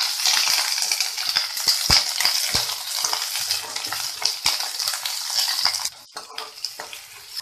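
Cubed onion and green capsicum sizzling in hot oil in a kadai on high flame, stir-fried with a metal spatula that knocks and scrapes against the pan a few times. The sizzle drops away sharply about six seconds in.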